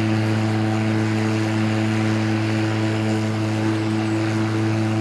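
EGO 56-volt cordless electric lawn mower running with its mulching plug fitted, the blade spinning at a constant speed: a steady low hum with overtones over a hiss of air.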